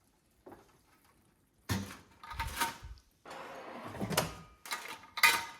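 Air fryer drawer pulled out with a sliding scrape about three seconds in, among several knocks and clatters as the baking dish is handled and lifted out.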